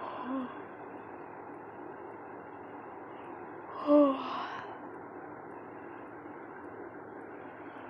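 Two short wordless vocal sounds from a woman over a steady hiss: a faint one just after the start and a louder one about four seconds in.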